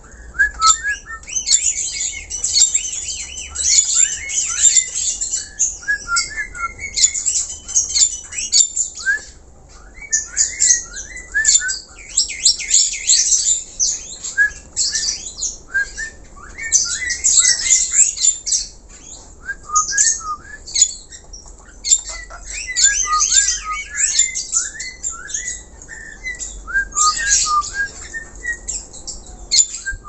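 Caged black-collared starling singing at length: a busy, varied string of short rising whistles, rapid trills and harsh scratchy squawks, broken only by a couple of brief pauses.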